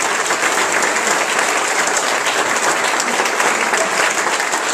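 An audience applauding, many hands clapping at a steady level.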